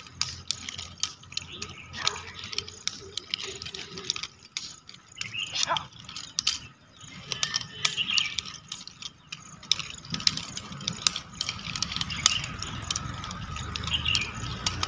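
Metal nunchaku being swung, struck and caught: the chain and sticks rattle and click in quick, irregular runs, busier in the second half.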